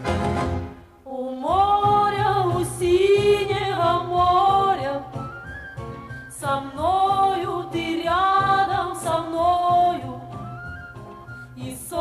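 Music: a song's introduction, a melody line that may be wordless singing over a steady band accompaniment. It drops out briefly about a second in.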